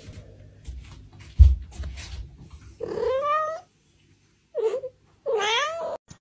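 Grey cat meowing three times, drawn-out complaining meows that rise and fall in pitch: a long one about three seconds in, a short one, then another long one near the end. A dull thump comes a little over a second in.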